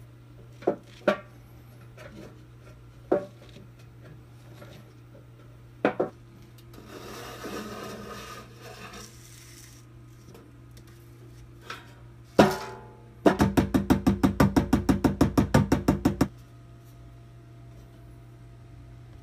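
Hammer tapping on the sheet-metal pan of an old-fashioned popcorn popper along its wire-rolled edge: a few single sharp taps, a couple of seconds of scraping, a harder ringing blow, then a quick even run of about seven taps a second for three seconds.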